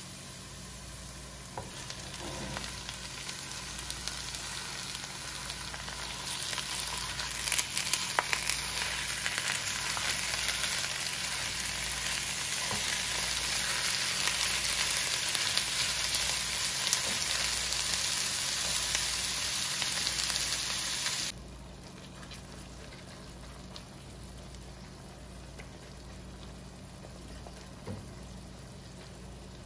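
Raw ground beef sizzling in a hot pan with onions and green peppers, frying loudly while a spatula stirs and scrapes it with scattered clicks. The loud sizzle cuts off abruptly about two-thirds of the way through, leaving a quieter frying hiss.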